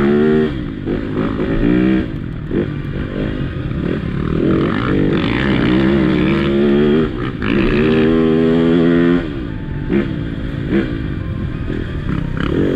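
Dirt bike engines revving, rising and falling in pitch several times as the throttle is opened and eased off.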